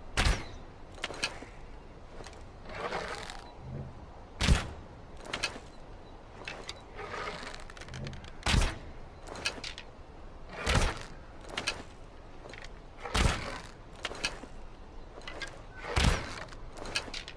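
Longbow shot repeatedly: about six sharp snaps of the string on release, two to four seconds apart, some preceded by a swelling rustle of the draw, with lighter clicks between the shots.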